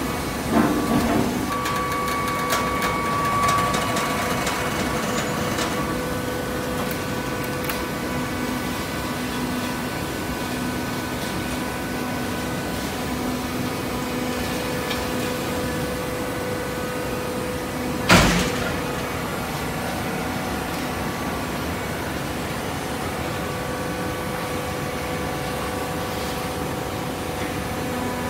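Automatic horizontal hydraulic baler running, its hydraulic power unit giving a steady hum with several held tones, with a few clicks and knocks in the first seconds and a single loud clank about two-thirds of the way through.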